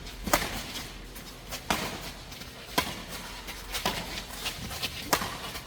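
Badminton rally in doubles play: rackets striking the shuttlecock with sharp cracks about once a second, five strong hits, with lighter taps and shoe sounds between them.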